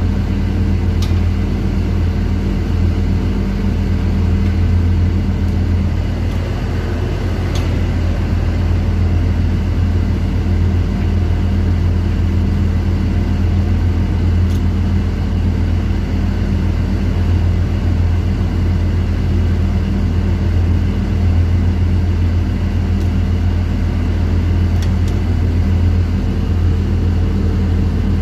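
Steady, loud machinery drone with a deep, even hum, broken only by a few faint clicks.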